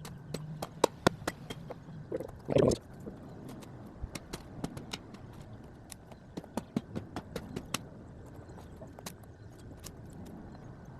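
An axe striking tree limbs and snapping them off: many sharp, irregular knocks and cracks, with a louder crunching burst about two and a half seconds in.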